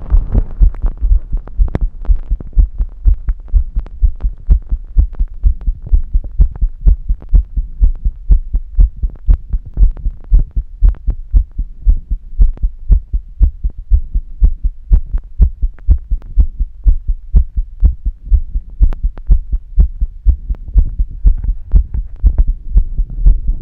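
A woman's heartbeat, close-recorded: a steady, regular train of deep thumps.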